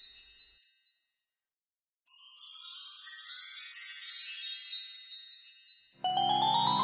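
Magic-wand sparkle sound effect: a shower of high tinkling chime notes that fades out within the first second, then a second cascade of descending twinkles after a brief pause. Near the end a glockenspiel-like mallet melody begins.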